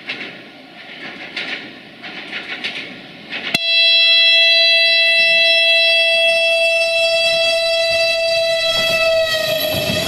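Siemens Desiro VT642 diesel multiple unit sounding one long, single-tone horn blast that starts suddenly about three and a half seconds in, holds for about five seconds and dips slightly in pitch as it ends. Before it there is clicking and rattling from the track, and near the end the noise of the train rushing past rises.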